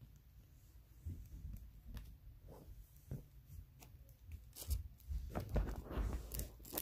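Handling of trading cards and their foil pack wrappers: soft clicks and rustles, then busier tearing and crinkling of a wrapper over the last two seconds.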